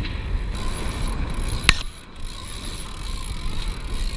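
A sailing catamaran's mainsail halyard winch is being cranked, its ratchet and blocks working as the mainsail goes up, with one sharp click about one and a half seconds in. Wind and water rumble run underneath.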